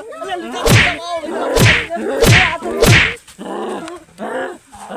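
Four loud whacks of blows landing on a person's body, about one every 0.7 s, with a man's voice crying out between them and after the last.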